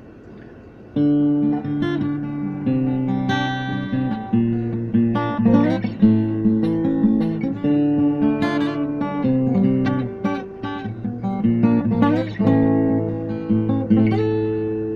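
Acoustic guitar playing chords, starting about a second in.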